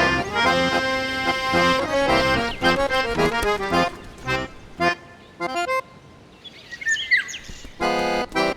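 Background music led by an accordion-like reed instrument, holding chords and then playing short separate notes. In a pause in the music about seven seconds in, a bird chirps a few quick high notes, and then a short chord sounds.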